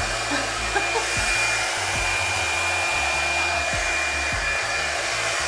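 EZ Detangler blow dryer running steadily on its low setting as it dries natural hair: a constant rush of air with a thin, steady high whine.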